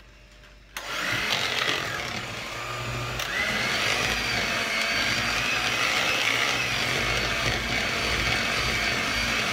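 Electric hand mixer starting up about a second in and running steadily, its twin beaters whisking through thick cake batter; it gets a little louder about three seconds in.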